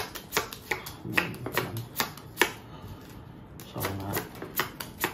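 Playing cards being dealt one at a time onto a table, each card landing with a sharp snap, about two or three a second.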